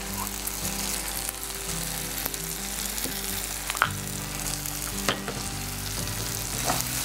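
Onion and tomato kulambu base sizzling in an unglazed clay pot over a gas flame, a steady frying hiss, with a few light clinks of a utensil partway through.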